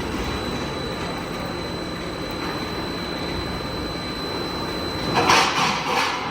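Roll forming machine running: a steady mechanical din with a thin high whine, and a louder hissing rush about five seconds in that lasts about a second.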